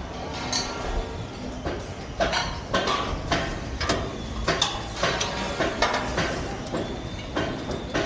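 Irregular metallic clanks and knocks, several a second, from someone climbing steel scaffolding stairs, over a steady low rumble.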